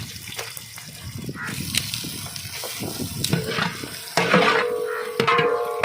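Onions and green chillies sizzling as they fry in hot oil in a large cooking pot, with short knocks from stirring. Background music with tabla comes in about four seconds in.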